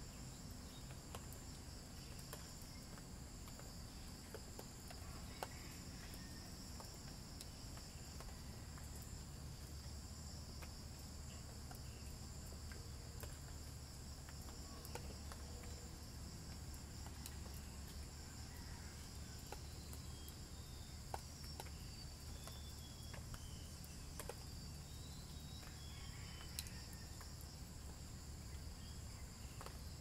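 Crickets trilling steadily and high, with scattered single drips of rainwater falling from the trees. Toward the end come a few short, falling bird chirps.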